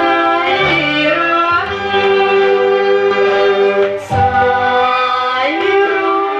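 A Thai song playing from a vinyl record on a turntable with a moving-coil cartridge. Long held melody notes over strings and a bass line.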